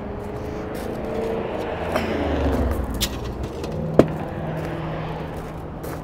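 A vehicle passing by, its sound swelling and then falling away in pitch over a couple of seconds. A few light knocks come through, with one sharp click about four seconds in, followed by a steady low hum.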